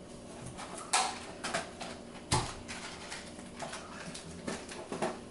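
Scattered light knocks and clatter of kitchen items being handled and set down on a countertop, the two sharpest about a second in and about two and a half seconds in, over a faint steady hum.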